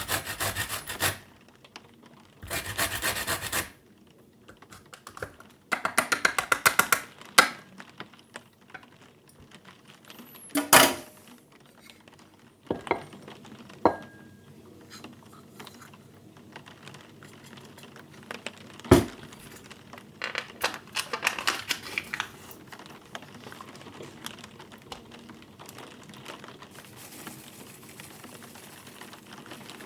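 Hands-on kitchen work: short bursts of quick, rhythmic scraping strokes, then scattered knocks and clinks of utensils and dishes, with one sharp knock about two-thirds of the way in.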